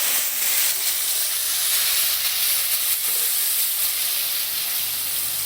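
Loud, steady sizzling of hot oil in a frying pan of browned onions just after an ingredient has been added, easing slightly near the end.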